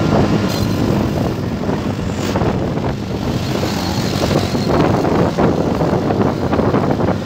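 Riding on a motorcycle: wind buffeting the microphone over a steady engine and road rumble.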